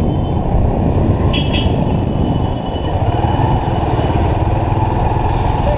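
Motorcycle running at riding speed, heard from on the moving bike: a loud, steady engine rumble mixed with wind and road noise.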